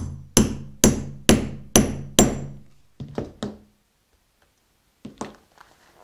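Hammer striking a metal setting punch to set a metal snap fastener: six sharp blows about two a second, each with a short metallic ring, then three lighter taps.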